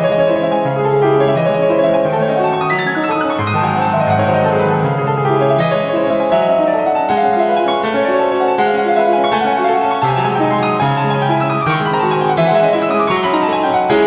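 Background piano music: sustained chords and melody notes, with quicker notes near the end.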